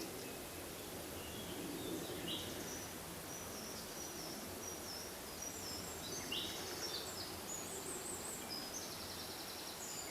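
Songbirds singing in a forest: short high notes and rapid trills from more than one bird, busiest in the second half, over a steady background hiss.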